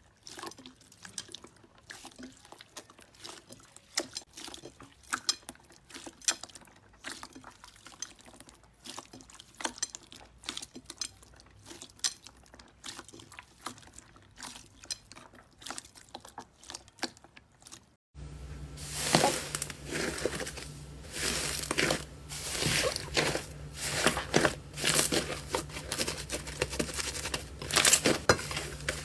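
Slime being squeezed and pressed by hand: soft, quiet clicks and squelches, then, after a sudden change about 18 seconds in, a louder run of dense sharp clicks and crackles over a steady low hum.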